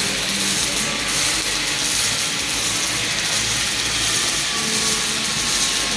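Robotic gas-shielded arc welding: the welding arc hissing and crackling steadily and evenly throughout.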